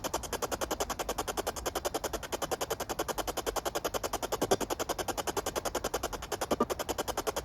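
Rapid, even chopping static, about ten pulses a second, from a ghost-hunting radio-sweep device (spirit box) scanning through stations.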